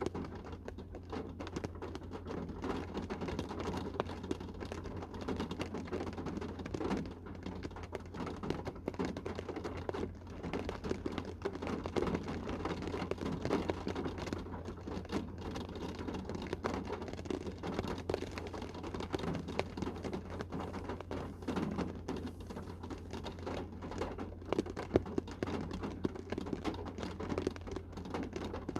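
Rain shower falling on a car's roof and windows, heard from inside the cabin: a dense, steady patter of drops with no let-up.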